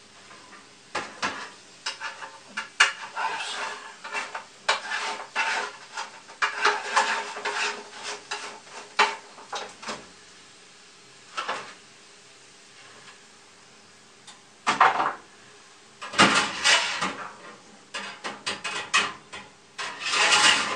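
Irregular clattering and rattling of hard objects being handled, in clusters of sharp knocks with a lull of a few seconds in the middle.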